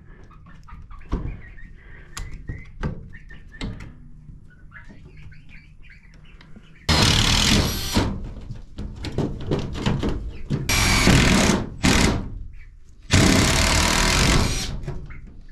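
Faint clicks and knocks of handling for the first several seconds, then a cordless drill running against the coop's wall in several loud bursts of one to two seconds each, with short pauses between them.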